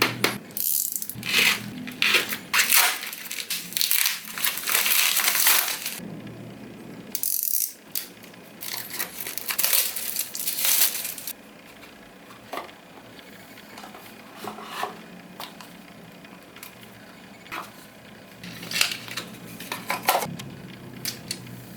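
Smartwatch packaging being opened and handled: dense crinkling and rustling with sharp clicks for roughly the first half, then sparser clicks and taps.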